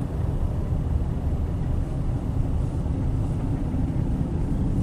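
Car driving on the road, heard from inside the cabin: a steady low rumble of engine and road noise.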